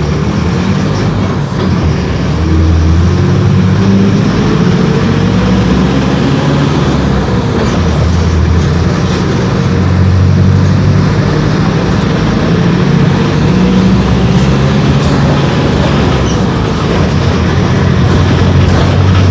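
Diesel engine of a Mercedes-Benz OF-1418 city bus running under load, its pitch climbing several times as the bus accelerates.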